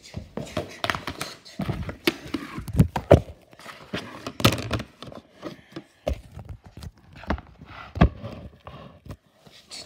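Irregular handling noise: knocks, taps and rubbing of a hand on a clear plastic container and its lid, with a few sharper thuds.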